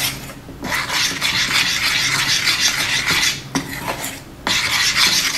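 Metal spoon scraping and stirring against the sides and bottom of a stainless steel saucepan, working melted ghee and jaggery into a thick syrup, with a few short pauses.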